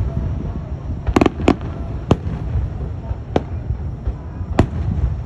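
Aerial fireworks shells bursting with sharp bangs: a quick cluster of bangs about a second in, then single bangs roughly a second apart, over a steady low rumble.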